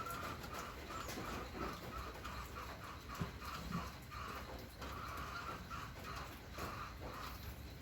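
An animal calling in a run of short, evenly spaced notes at one pitch, about three a second, with a longer note a little past the middle.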